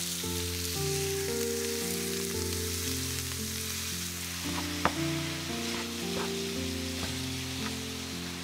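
Ground beef sizzling in a hot oiled frying pan as a wooden spatula breaks it up and stirs it, with a few clicks of the spatula against the pan and a sharp knock about five seconds in.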